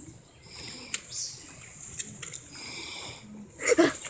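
Faint rustle and a few sharp clicks of a small BMX bicycle rolling over grass, then a short vocal cry near the end.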